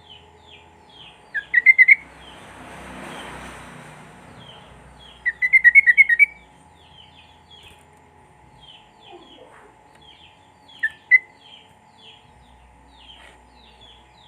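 Sooty-headed bulbul (trucuk) singing: a string of short falling chirps, broken by loud, rapid runs of notes about two seconds in and around five to six seconds, and a loud pair near eleven seconds.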